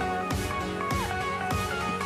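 Background music with a steady beat and a melodic line of held notes that slide in pitch.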